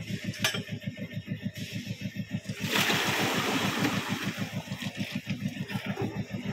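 Concrete mixer's engine running with an even chugging, about eight beats a second. Near the middle, a loud rushing hiss as wet concrete slides out of the mixer's discharge chute.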